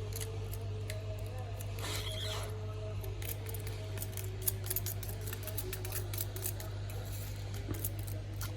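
Irregular small clicks and scrapes of a pen-style tool chipping and prying cracked back glass off an iPhone X, over a steady low hum.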